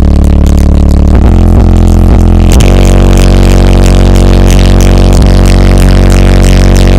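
Very loud, deep bass music played through a car audio system's four Jones Subwoofer Solutions 600-series 18-inch subwoofers, sustained low notes with a dense buzz of overtones. The bass line shifts to a new note about two and a half seconds in.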